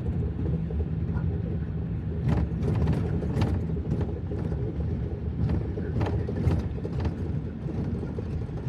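Steady low rumble of a truck's engine heard from inside the cab, with a few irregular sharp taps.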